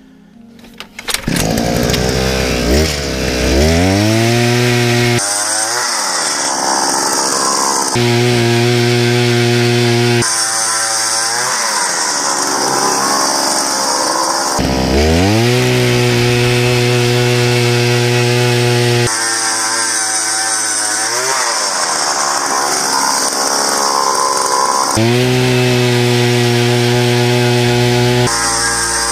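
Gas-powered ice auger starting up about a second in and revving, its engine pitch climbing, then running at high speed while drilling through the ice. The engine sound jumps abruptly several times, and some stretches begin with another climb in pitch as the auger revs up again.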